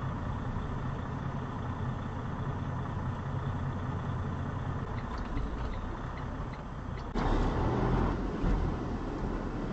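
Semi-truck's diesel engine heard from inside the cab, a steady low rumble as the truck creeps to a stop. About seven seconds in, the sound cuts abruptly to louder engine and road noise from a moving truck.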